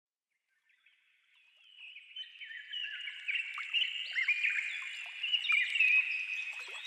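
A dense chorus of many birds chirping and calling over one another, fading in from silence after about a second and a half and building steadily louder.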